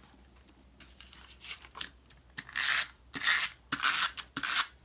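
Snail tape-runner adhesive drawn across the back of a patterned-paper square in short strokes. A couple of light rubs come first, then four firm strokes about half a second apart from about two and a half seconds in.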